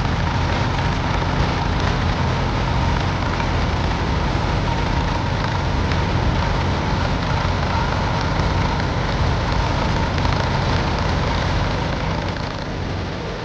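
Tractor engine running steadily close by, easing off slightly near the end.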